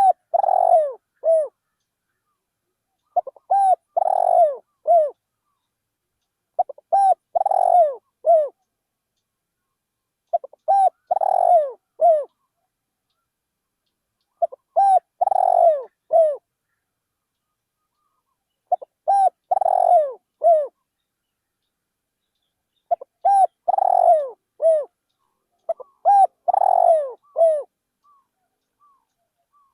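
Spotted dove cooing close by: the same short phrase of a few quick coos and a longer falling note, repeated eight times with pauses of about two seconds between.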